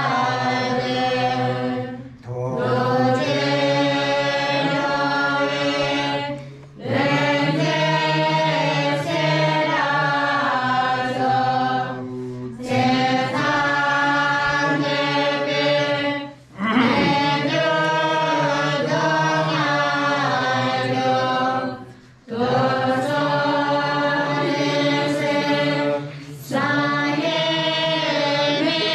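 A group of voices singing a slow devotional chant in long sustained phrases, with a short break between phrases every five seconds or so and a steady low hum underneath.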